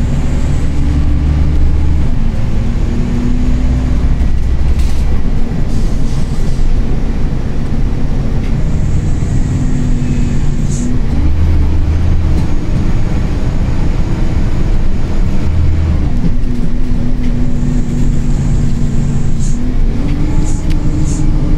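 Scania K114 coach's diesel engine running under way, its note stepping up and down several times as it pulls and eases off, over a steady low rumble. Short high hisses come twice, in the middle and near the end.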